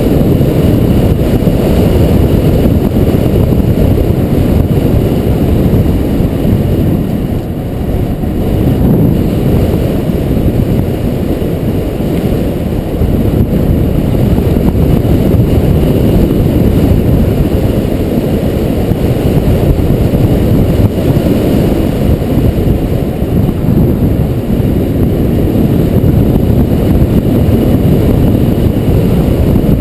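Wind buffeting the microphone of a camera on a bicycle descending a mountain road at speed: a loud, steady, fluttering low rumble.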